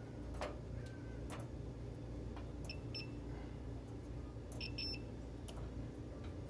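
Digital multimeter giving a few short high beeps as its test probes touch the terminals of an electric stove's coil burner element during a resistance test, with a few light clicks of the probes before them.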